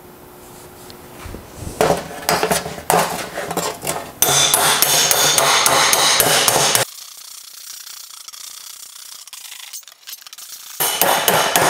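Slapper hammer striking a welded sheet-metal fender panel over an egg-shaped dolly, hammer-and-dolly work to raise the low spots along the weld and knock down the highs. A few separate blows come first, then a fast run of slaps lasting a couple of seconds, a quieter stretch, and more blows near the end.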